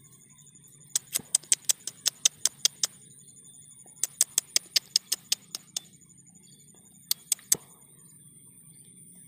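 Three quick runs of sharp, high clicks, about six a second, each run lasting up to two seconds, the last only three clicks. Under them a steady faint high-pitched buzz goes on.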